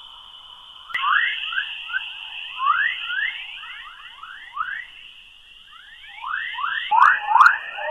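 Earth's electromagnetic waves made audible: the magnetosphere's 'chorus' plasma waves as rapid rising, bird-like chirps, two or three a second, over a steady high tone. The chirps grow louder near the end.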